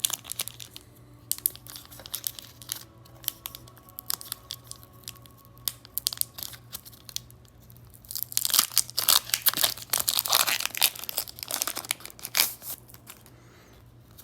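Foil booster-pack wrapper crinkling in the hands with scattered crackles, then torn open in a dense stretch of tearing and crinkling about eight seconds in that lasts a few seconds.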